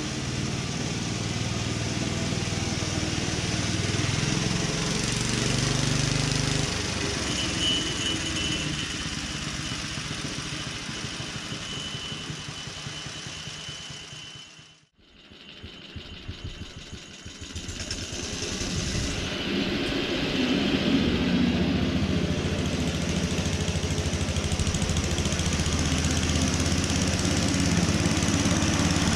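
Petrol engine of a restored Ransomes Marquis cylinder lawn mower running steadily. About halfway through the sound fades almost away, then builds back up.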